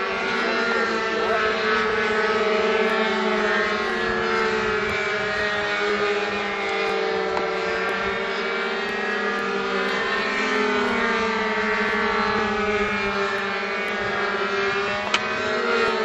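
Several small RC combat planes' two-stroke model engines running at once overhead, high-pitched, their pitches rising and falling against each other as the planes dive and turn. A single sharp click about fifteen seconds in.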